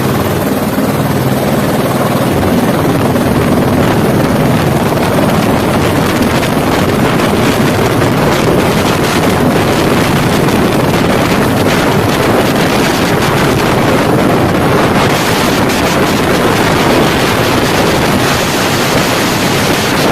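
Helicopter running, a loud steady noise with wind buffeting the microphone.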